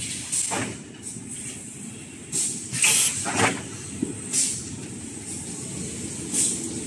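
Automatic paper towel rewinding machine running with a steady rumble, broken by several short, sharp hisses of compressed air from its pneumatic parts, the loudest about three seconds in.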